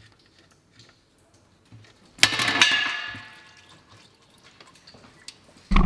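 Used engine oil gushing out of a Mercedes W205's oil pan as the drain plug comes free, splashing into the drain container below; it starts suddenly about two seconds in with a ringing from the container, and then fades. A short thump near the end.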